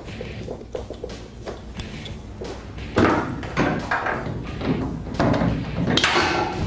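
Several knocks and clunks from a truck bed extender's tube frame being shifted and set against a pickup's bed and tailgate, with background music underneath.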